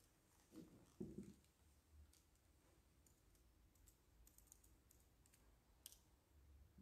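Near silence: quiet church room tone, with two soft low thuds about a second in as the priest sits down in his chair, and a few faint clicks.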